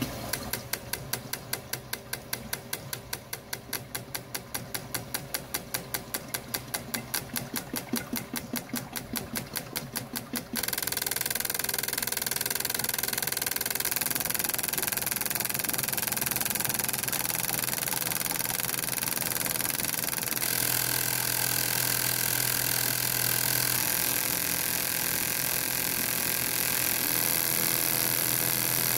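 Injector flow bench running a dynamic test on eight decapped fuel injectors: the injectors pulse in an even rapid clicking, about four to five a second, over the bench's pump. About ten seconds in, this changes abruptly to a steady hiss of fuel spraying into the measuring tubes.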